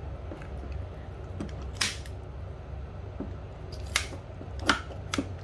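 Kitchen scissors snipping into a whole halibut as it is cleaned: four sharp snips, one about two seconds in and three close together near the end, over a low steady hum.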